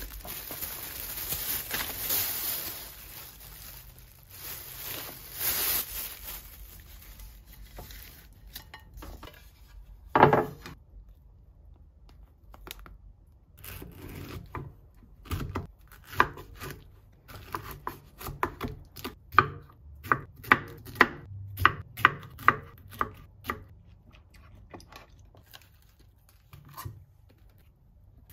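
Plastic wrapping rustling, then a single loud knock about ten seconds in, then a kitchen knife cutting a pineapple on a wooden cutting board in a run of sharp strokes, about two to three a second.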